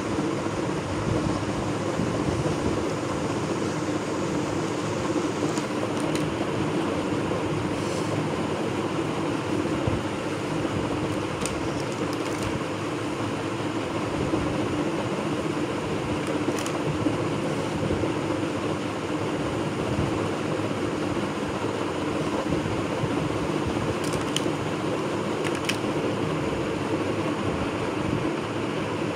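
A steady mechanical hum, with a few faint, light clicks scattered through it.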